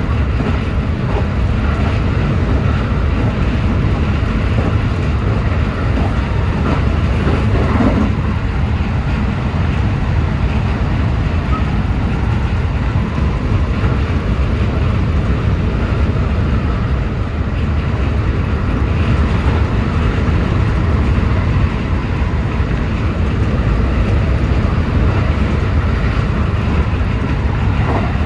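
JR West 223-series electric multiple unit running at speed, a steady loud rumble of wheels on rail and running gear, with a faint whine from the traction motors. It is running hard to make up a delay.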